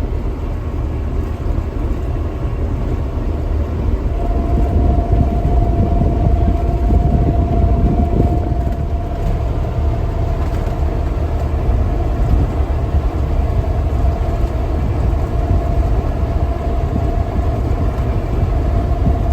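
Large harvest machine's engine running steadily: a heavy low rumble with a thin steady whine over it that drops out at the start and comes back about four seconds in.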